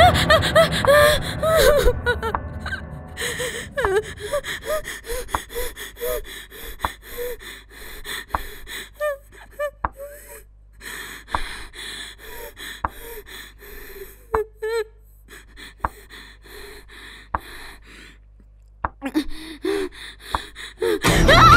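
A woman's frightened gasp, then a long run of short, shaky, whimpering breaths with small clicks in between. Near the end a loud, sustained shrill sound sets in.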